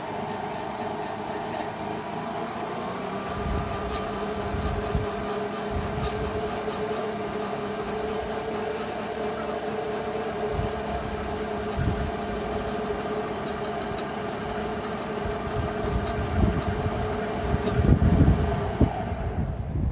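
Electric flat lap lapidary machine running with a steady hum while a quahog shell cabochon is pressed against its wet, dotted polishing pad, adding a rubbing sound and uneven low knocks. The sound drops away sharply near the end.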